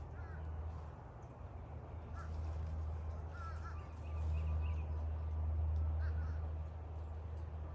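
Light breeze rumbling on the microphone, swelling about four seconds in, with short bird calls here and there.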